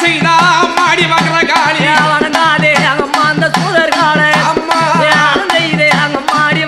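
Tamil devotional music: a steady drum beat under a wavering, ornamented melody line.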